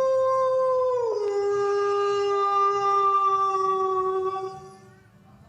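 Wolf howling: one long howl that steps down to a lower, steady note about a second in and fades away near the end.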